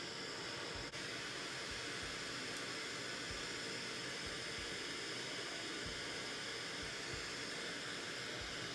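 Handheld gas torch flame hissing steadily while heating a shaft to push it into a 3D-printed part; it cuts off near the end.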